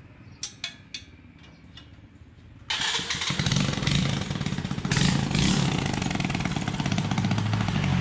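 A few sharp tool clicks, then a small motorcycle engine starts about a third of the way in and runs loud, with a rapid pulsing exhaust beat and a rev about halfway through. The exhaust still sounds wrong after a part that had worked loose was refastened.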